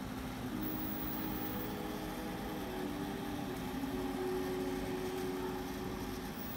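Steady room noise of a buffet dining area: a low even hum, with faint held tones that shift in pitch every second or two.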